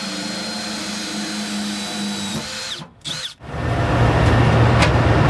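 Cordless drill running steadily as it bores a hole through a VW engine's sheet-metal fan shroud. The drill stops about three seconds in. A louder, steady low noise follows.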